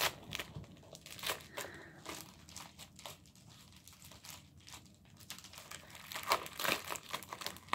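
Crinkling and rustling of a metallic plastic bubble mailer being torn open and handled by hand, in irregular bursts that grow louder and busier near the end.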